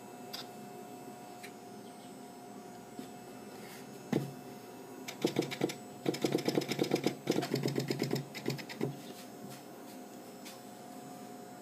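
Restored Seeburg Model K 58-note pneumatic stack being worked: a single click about four seconds in, then a rapid clatter of pneumatic action and push-rod clicks, several a second, lasting about four seconds, over a faint steady hum.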